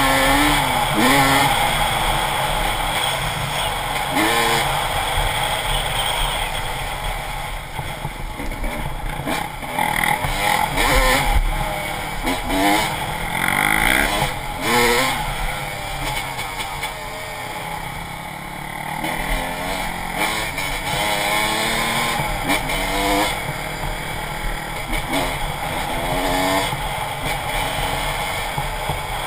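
Dirt bike engine on the move, its pitch climbing and dropping again and again as the throttle is opened and closed through the gears, over steady rumbling wind and ride noise.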